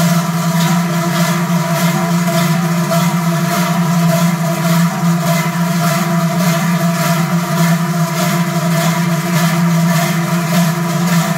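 Dozens of large Swiss cowbells (Treicheln) swung in unison by rows of bell-ringers: a dense, loud clanging drone with a steady, rapid beat of strokes.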